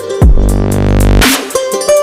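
Electronic dance music with a deep bass drop that starts a fraction of a second in, each drop opening with a falling sweep, over ticking hi-hats.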